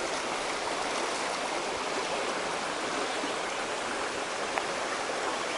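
Small rocky brook running over stones: a steady rush of flowing water.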